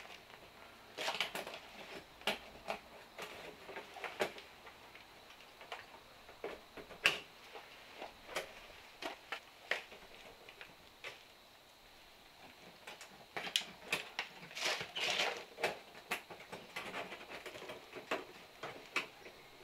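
Baling wire being twisted to tie wire lath together: irregular clicks, scrapes and rattles of wire against metal mesh, busier for a few seconds about two-thirds of the way through.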